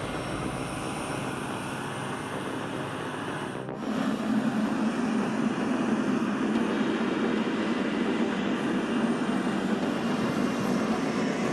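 Heavy truck engines running under load with a steady drone. An abrupt change about four seconds in is followed by a louder, deeper, steady engine hum.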